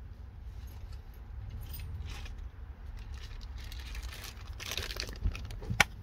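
Small plastic zip bag of wire connectors handled: the bag crinkles and the loose plastic parts inside rattle, with two sharp clicks near the end, over a low steady rumble.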